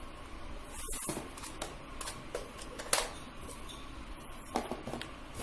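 Handling noise from unpacking a plastic remote-control rock crawler toy car and its controller from a cardboard box: faint rustling with a few sharp clicks and knocks, the loudest about three seconds in, as the pieces are set down on a hard floor.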